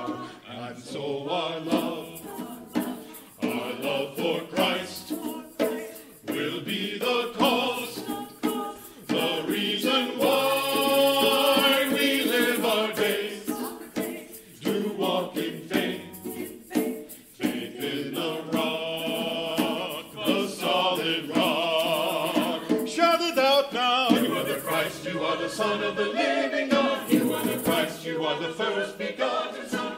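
Mixed church choir of men's and women's voices singing an anthem together in phrases, with short breaks between them.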